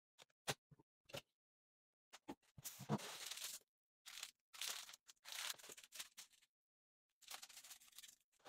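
Plastic packaging crinkling and rustling in irregular bursts as it is handled and pulled out of a cardboard box, after a few light clicks and taps in the first second.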